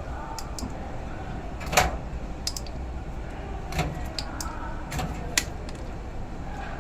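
Irregular clinks and knocks from handling the parts and tools of a top-load washing machine's gearbox under repair, the loudest about two seconds in and a few more near the middle, over a steady low hum.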